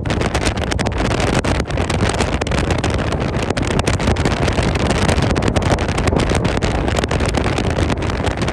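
Strong storm wind blowing hard across the microphone: a loud, continuous rushing noise that flutters and buffets without letting up.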